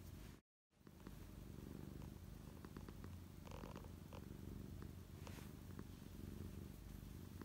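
Domestic cat purring steadily and softly while its chin and head are rubbed. The purr drops out completely for a moment just after the start.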